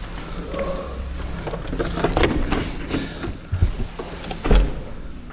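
Irregular knocks and clicks from walking and camera handling, over a low steady hum, with one heavier low thump about four and a half seconds in.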